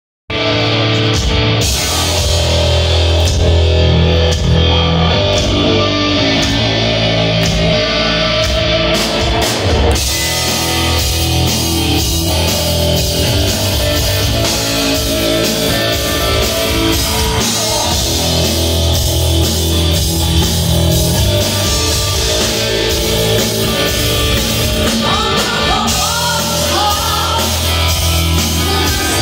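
Hard-rock power trio playing live, with electric guitar, bass guitar and drum kit. The band sound fills out with steady cymbals about ten seconds in, and bent guitar notes stand out near the end.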